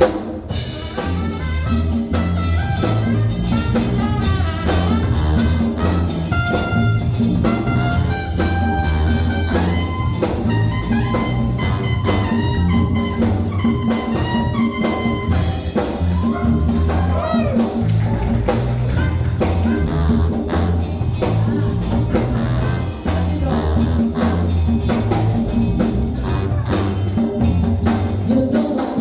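A band playing an instrumental passage with a steady beat.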